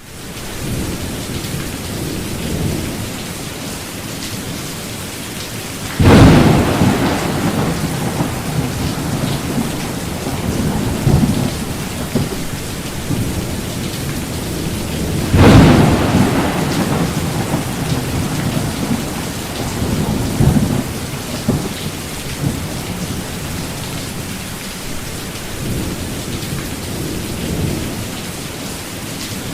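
Steady rain with two loud thunderclaps, one about six seconds in and another about fifteen seconds in, each rumbling away over several seconds.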